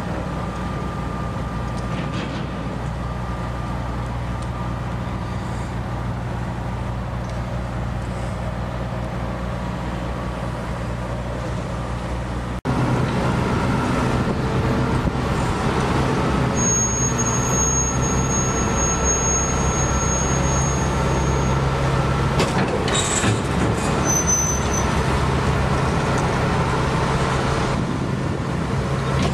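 Diesel engine of a cable excavator running steadily as its lattice boom swings and lowers, with a low engine hum throughout. It gets suddenly louder about halfway through. A thin high whine follows for a few seconds, then a short hiss.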